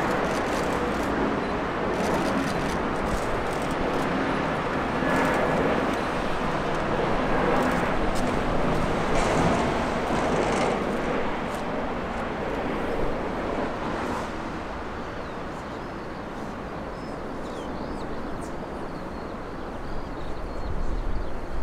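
Jet airliner engines heard as a broad rushing roar that holds for about ten seconds and then fades away as the aircraft passes.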